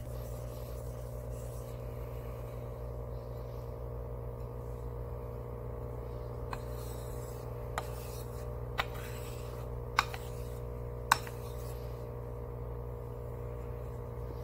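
Steel deba knife blade being stroked across a wet 6000-grit finishing water stone in the final sharpening stage, with a soft rubbing scrape. Several sharp clicks come midway, over a steady low hum.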